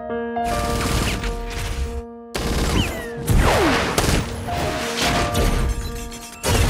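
Action-film soundtrack: held score chords under a barrage of gunfire and crashing impacts, with falling swoosh-like glides a little after three seconds in.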